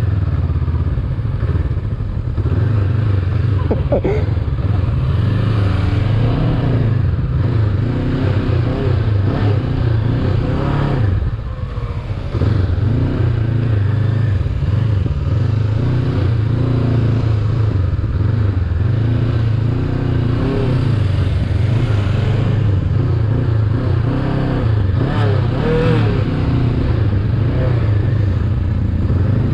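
Honda CB500X's parallel-twin engine running at low speed, its pitch rising and falling repeatedly with small throttle changes during slow-speed manoeuvring. It is briefly quieter about eleven seconds in.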